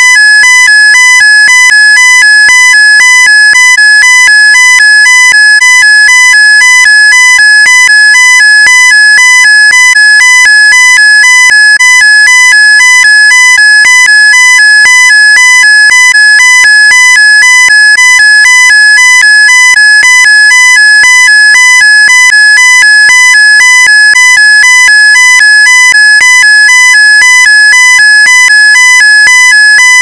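Ford dashboard warning chime sounding over and over in a steady, rapid electronic beep pattern, the error alert that no transmission gear has been selected.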